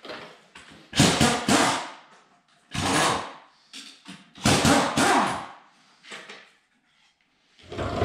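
Metal parts and tools clanking and scraping in four separate bursts, each under a second long, as work goes on at the tractor's front axle mount.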